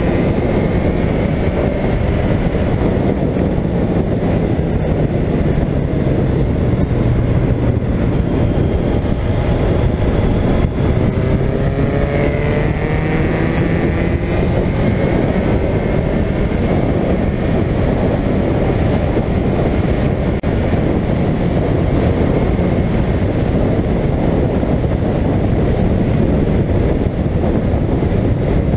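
Suzuki GSX1400 inline-four engine running at road speed under a steady rush of wind noise. Its pitch rises as the bike accelerates between about eight and fourteen seconds in, then holds steady.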